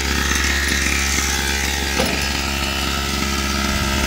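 Two-stroke gas engine of a 1/5-scale RC monster truck idling steadily, with a single knock about halfway through.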